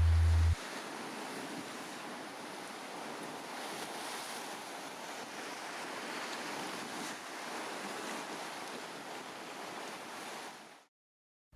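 Sea surf and wind: an even, steady rushing wash that stops abruptly about a second before the end. A loud low hum cuts off suddenly in the first half second.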